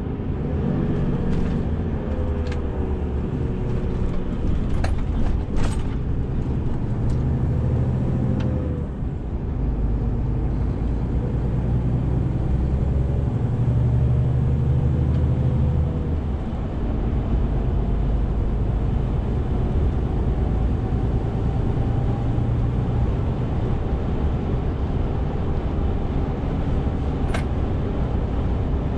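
Renault T 460 truck's six-cylinder diesel engine running under way, steady and loud, its note changing about a third of the way in and again just past halfway, as with gear changes. A few scattered light clicks or knocks sound over it.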